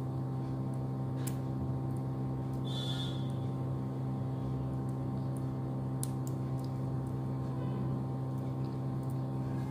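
Steady low electrical hum made of several steady tones, with a few faint clicks.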